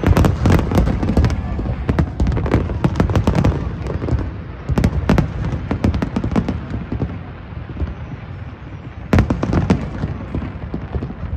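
Aerial firework shells bursting in a big display, a rapid volley of bangs. The bursts come thickest at the start, around three seconds in and again about nine seconds in, with a quieter stretch before the last volley.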